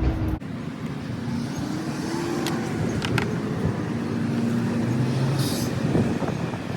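Chainsaw running while carving wood, its engine pitch shifting up and down as the chain bites and eases off.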